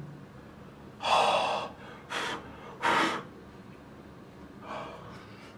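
A man's sharp breaths or gasps: a longer one about a second in, two short ones soon after, and a faint one near the end.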